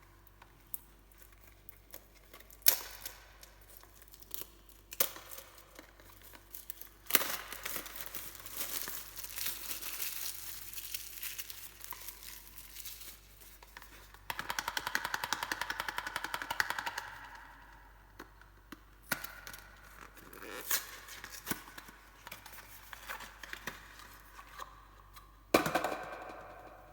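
Soap packaging being opened by hand: a paper or plastic wrapper crinkling and tearing, with scattered sharp taps and clicks. About halfway through there are a few seconds of rapid, evenly spaced scratching or tearing, and there is a louder tap near the end.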